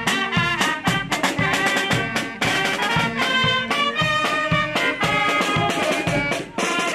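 Marching band playing as it marches past: snare and bass drums keep a steady beat under trumpets, saxophones and tubas playing the tune.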